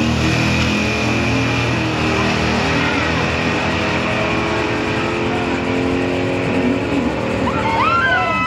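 Two street cars' engines at full throttle on a drag-strip pass, moving away from the start line; the note steps in pitch at gear changes and otherwise holds steady. A voice cuts in near the end.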